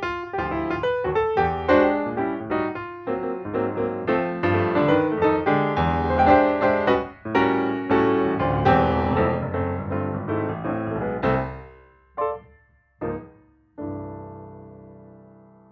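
Piano music: a busy run of notes that thins out into two short separate chords, then a final held chord that slowly dies away near the end.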